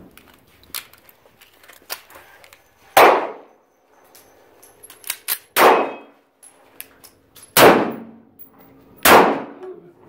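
Four handgun shots, roughly two seconds apart, each with a short echo, and light metallic clinks between them.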